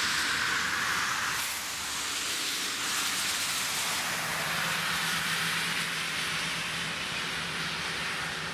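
Cars passing on a wet road, their tyres hissing on the wet asphalt. A low engine hum joins about halfway through and fades near the end.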